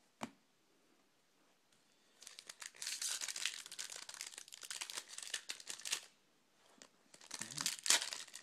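Wrapper of a hockey card pack crinkling and tearing as it is ripped open, in two long stretches with a short pause between them. A single sharp tap comes just after the start.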